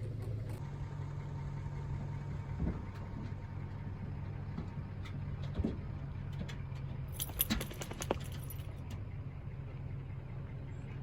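Vehicle engine running steadily at a low hum, with scattered light rattles and a brief jangle of metal clicks about two thirds of the way through.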